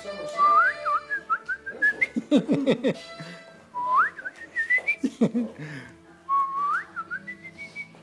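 Whistling in three short phrases, each gliding upward in pitch. Quick bursts of lower chirping sounds come between the phrases.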